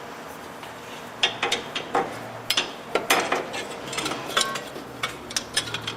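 Irregular metallic clinks and clicks of hand tools and hardware against the car's exhaust parts, starting about a second in, some strikes briefly ringing, as the exhaust hanger bracket is refitted.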